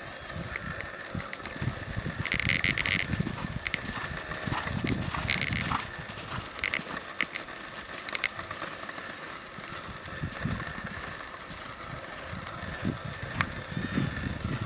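A ridden horse moving around a sand arena, its hoofbeats soft and irregular in the footing. A few short high-pitched sounds come between about two and eight seconds in.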